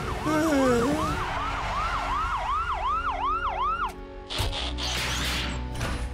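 Cartoon police car siren wailing in quick rising-and-falling sweeps, about three a second, stopping about four seconds in. It is followed by a burst of noisy clattering as the police car transforms into a robot.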